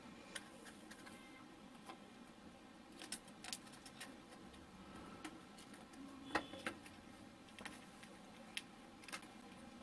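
Faint, scattered clicks and taps of hands handling a cardboard toy car with plastic wheels and a plastic zip tie. The sharpest tap comes about six seconds in.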